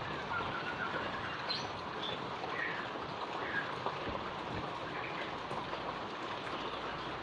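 Steady rain falling, an even hiss, with a few faint short chirps over it.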